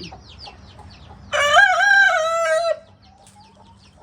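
A rooster crows once, a loud call of about a second and a half starting a little over a second in, over the steady high peeping of chicks.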